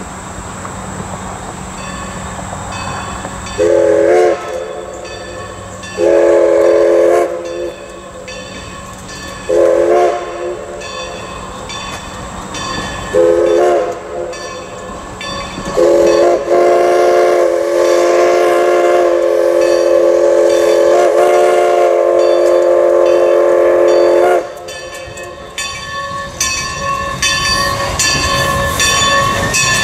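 Everett Railroad No. 11, a 2-6-0 Mogul steam locomotive, sounding its chime steam whistle for a road crossing: four short blasts and then one long blast of about eight seconds, each a chord of several notes. After the whistle stops, the engine's running sounds, a rhythmic metallic clatter, grow louder as it draws close.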